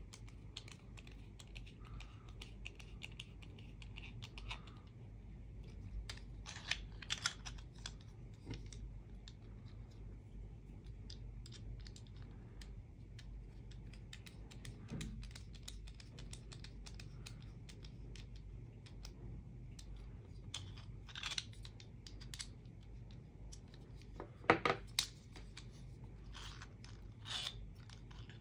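Small ticks and clicks of a precision screwdriver turning screws into a 3D-printed plastic fidget knife, with a few louder plastic clacks as the parts are handled, the loudest near the end.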